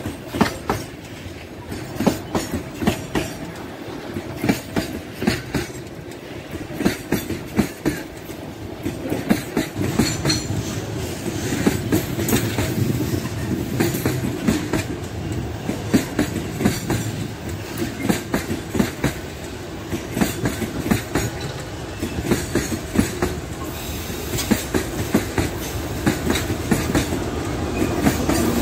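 Freight train of open gondola wagons rolling past at close range: a steady rumble with the wheels clacking over the rail joints, often in quick pairs. The sound grows louder near the end as a diesel locomotive comes alongside.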